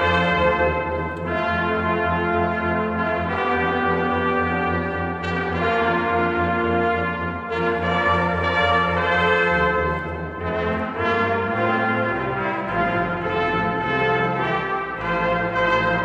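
Brass choir of trumpets, trombones and tuba playing held chords that change every second or two. About twelve seconds in, the bass line drops lower.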